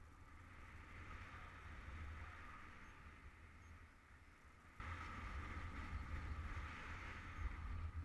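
Wind rushing over the microphone of a camera on a paraglider pilot in flight in strong wind: a low rumble with a hiss, swelling and easing in gusts, then turning suddenly louder about five seconds in.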